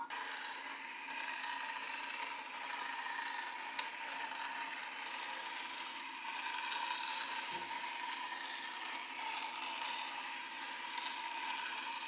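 LEGO Mindstorms EV3 large motor driving the plastic gear train that turns the 360° rotating platform: a steady, unbroken mechanical whir of the motor and meshing gears.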